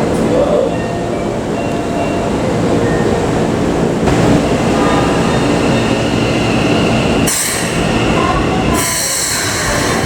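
Keikyu New 1000 series train heard from inside the car as it runs, with a steady rumble of wheels on rail and thin, high wheel squeal in the second half. Two short bursts of hiss come about 7 and 9 seconds in.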